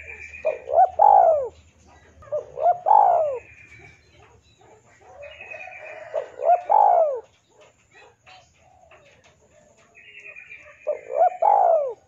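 Spotted dove (tekukur) cooing: four phrases a few seconds apart, each two short notes and then a longer drawn-out note that falls away.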